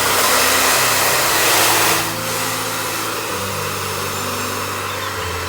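Handheld hair dryer blowing: a steady rushing hiss, louder for about the first two seconds and then a little quieter.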